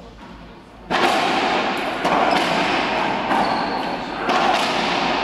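Racquetball rally: a string of sharp cracks from the racquet striking the ball and the ball hitting the court walls, starting suddenly about a second in, each crack echoing loudly in the enclosed court.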